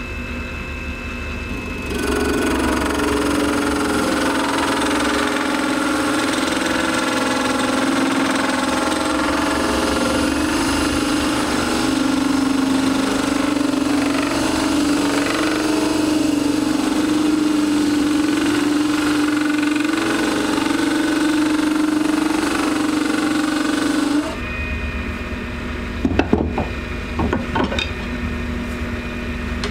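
Small benchtop wood lathe spinning an acrylic resin duck-call blank while a hand-held turning chisel cuts a lanyard groove into it: a loud, steady cutting noise with a low held pitch that starts about two seconds in and stops suddenly near the end. After that the lathe keeps running on its own, with a few sharp knocks.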